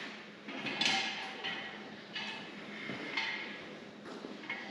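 Metal pieces being handled and set in place: a string of light clanks and knocks, some with a short metallic ring, about two a second.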